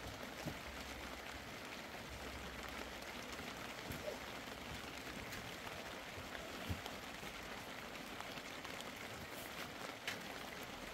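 Steady light rain hissing, with a few faint taps and the rustle of a felt floor mat being pulled flat and smoothed.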